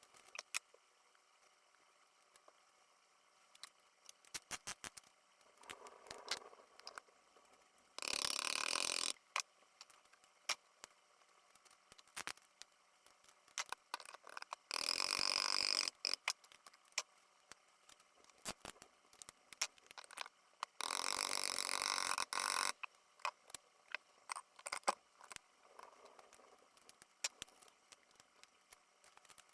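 Time-lapse, sped-up sound of hand work fitting pistons with a ring compressor into an engine block: many scattered small clicks and clinks of metal parts, broken by three short bursts of rushing noise that start and stop abruptly.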